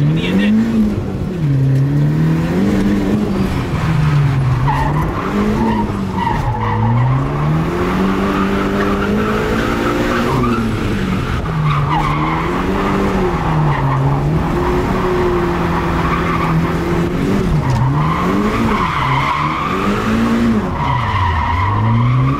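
Drift car's engine heard from inside the cabin, revving up and falling back over and over through the slides, with the tyres squealing and skidding.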